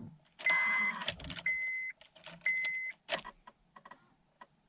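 Electrical buzzing from a 2003–2007 Honda Accord's ignition switch as the key is turned to start, with short high beeps repeating about once a second, then a few light clicks; the engine does not crank. The mechanic traces the noise to the switch rather than a sticking relay, a common failure of the switch's electrical part on these Hondas.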